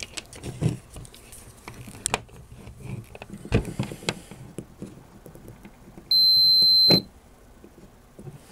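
A multimeter's continuity beeper sounds once, a steady high beep for just under a second, as the test probes bridge the pins of a shorted power output transistor; the beep marks the short. Before it come light clicks and scrapes of the probes being handled.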